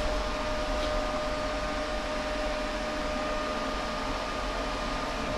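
Steady mechanical hum and hiss with a faint, even high whine running through it, like a fan or machine running in a small room.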